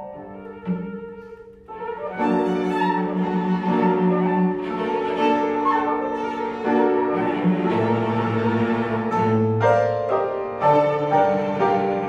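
Chamber ensemble of violin, cello and piano playing contemporary classical music: sparse short notes at first, then from about two seconds in, louder sustained bowed notes and chords. A low note enters around eight seconds in.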